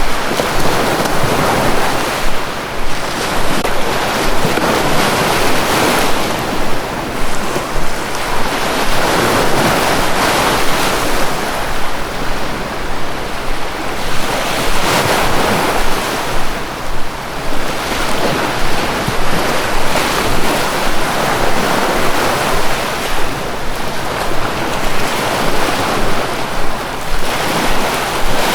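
Sea waves washing in continuously, swelling and easing every few seconds.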